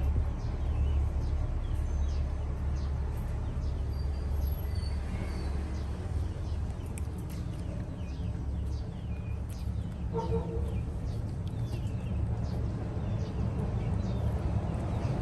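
Outdoor ambience: a steady low rumble under many short, high chirps scattered throughout, with a brief pitched call about ten seconds in.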